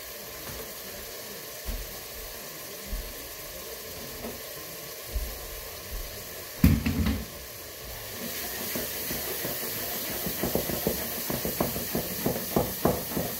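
Ground beef sizzling in a pot on the stove, a steady hiss that grows louder after a single loud knock about halfway through. Near the end a wooden spoon scrapes and stirs the meat in quick repeated strokes.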